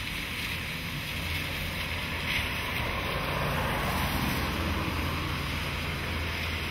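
Cars driving past on a flooded, rain-soaked road: tyres swishing through standing water and throwing up spray, over a steady low hum of engines.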